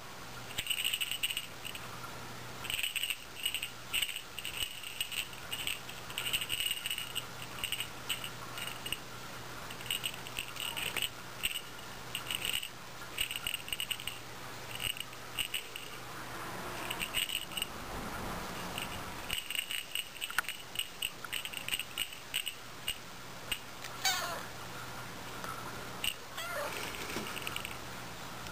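Small bell on a plush cat toy jingling in quick, irregular shakes, on and off. A cat meows near the end.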